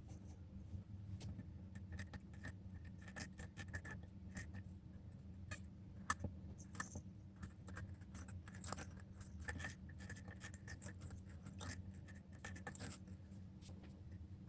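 Irregular scraping and clicking of hand tools working on a smartphone's display glass, over a low steady hum.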